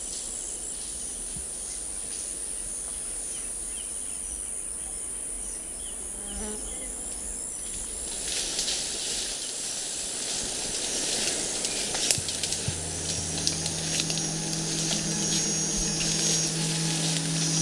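Forest insects droning steadily at a high pitch. From about halfway in, rustling and crackling of undergrowth is added, and a low steady hum of several held tones comes in about two-thirds of the way through.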